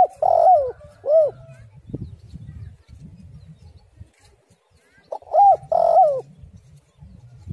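Spotted dove cooing: a group of arching coos at the start and a second group about five seconds in.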